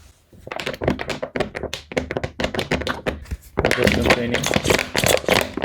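Hands working a plastic bottle, balloon and hand pump: a rapid, irregular run of small plastic clicks and taps, busier and louder about two-thirds of the way in.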